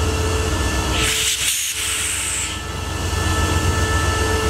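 Diesel locomotive No. 5112 running with a steady low engine rumble as it hauls a train of tank wagons past. About a second in, a burst of hissing lasts about a second and a half.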